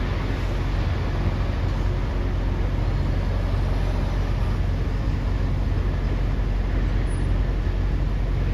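Heavy diesel machinery running steadily with a low, even hum.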